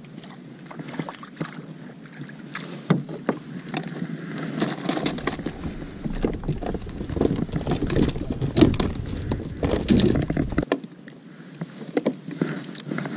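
Clicks, knocks and rustling of a fishing rod, line and clothing as a hooked mackerel is reeled in and lifted into a kayak. A low rumble, as of wind or handling on the microphone, runs under the middle of it and stops suddenly near the end.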